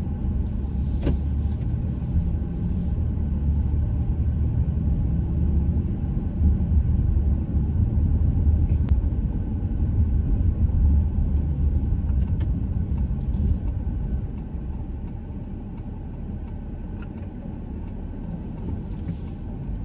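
Car driving along: a steady low road-and-engine rumble that eases off about two-thirds of the way through. Light regular ticks, about two a second, come in over the last few seconds.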